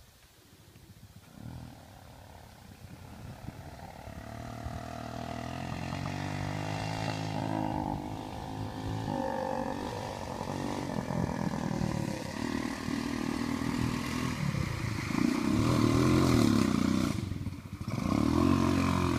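A motor engine running and revving, getting louder over the first several seconds, with a brief drop about 17 seconds in.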